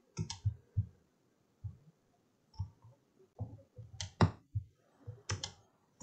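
Computer mouse clicking: a string of short, scattered clicks, with two sharp double clicks about four and about five and a half seconds in.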